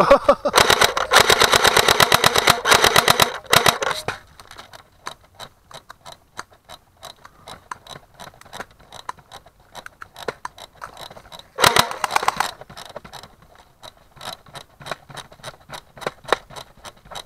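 Airsoft AK-47 rifle firing on full auto: a long rapid burst of about a dozen shots a second that stops about three seconds in, and a short burst near twelve seconds. Faint scattered ticks and clicks come between the bursts.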